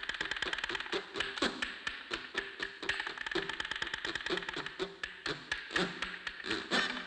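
Cartoon soundtrack of rapid, dry tapping and clicking, several taps a second, mixed with short pitched notes.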